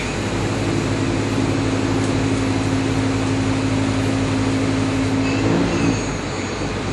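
CNC lathe boring a steel bore with a solid carbide boring bar under high-pressure coolant: a steady hiss of coolant spray over the machine's running hum. Two steady tones run beneath it and stop about five and a half seconds in.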